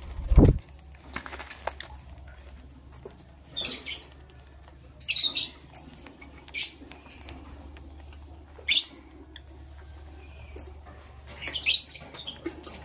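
Lovebirds giving short, sharp high chirps every second or two, some in quick pairs. A low thump sounds about half a second in.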